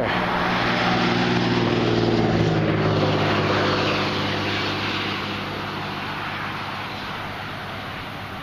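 A motor vehicle passing by: a steady engine hum with road noise, loud for the first few seconds and then fading away from about four seconds in, leaving a lighter rush of wind and road noise.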